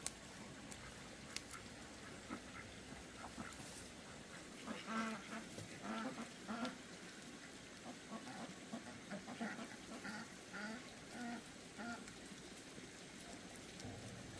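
Ducks quacking: a run of short calls starting about four seconds in, over faint outdoor background.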